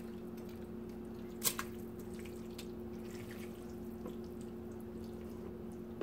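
Raw chitterlings dropped into a pot of broth: a short splash about a second and a half in, then a few faint drips and wet plops, over a steady low hum.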